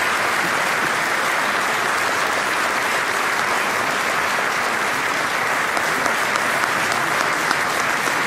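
A large audience applauding steadily, with a few individual claps standing out in the second half.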